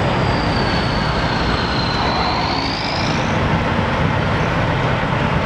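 Steady road traffic noise with vehicle engines running. In the first half, a thin high whine dips slightly and then rises over about three seconds.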